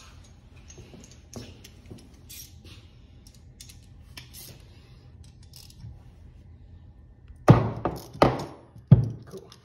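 Light metallic clicks and clinks of hand tools being sorted and picked out, then near the end three sharp knocks about two-thirds of a second apart.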